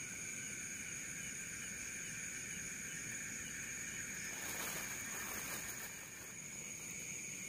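Steady chorus of night insects, several high-pitched drones held at fixed pitches without a break. About four and a half seconds in there is a brief rustling, swishing noise as the rod and line are handled.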